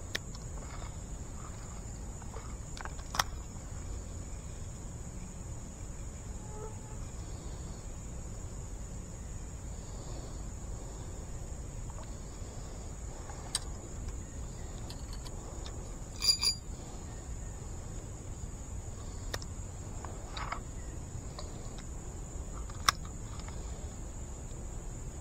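Insects droning steadily in high pitch, over a low rumble. A few sharp clicks and a brief rattle about two-thirds of the way through come from handling a spinning reel while the lure is cast and reeled in.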